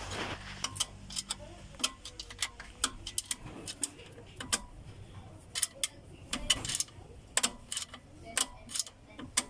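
Irregular sharp clicks and taps of hand tools on metal during work on an engine, with a faint low hum that dies away in the first two seconds.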